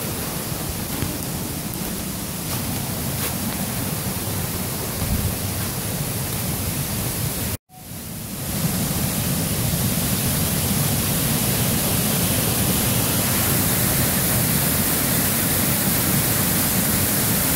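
Waterfall running high after heavy rain: a steady rush of falling water. The sound cuts out for an instant about halfway through and comes back louder.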